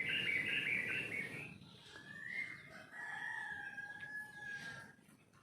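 Bird calls: about a second and a half of warbling chirps, then one long drawn-out call held for about three seconds.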